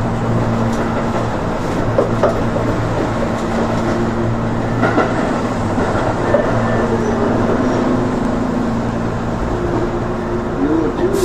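Electric commuter train running, heard from inside the car: a steady hum with steady low tones and a few faint knocks from the wheels on the track.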